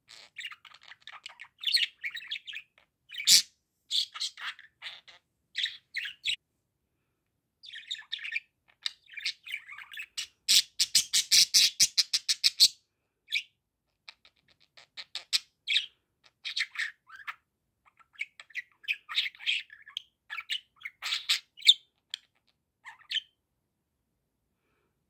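Budgerigar chattering and warbling: runs of short high chirps and squawky notes with brief pauses. Near the middle comes a loud run of rapid clicking chirps lasting about two seconds.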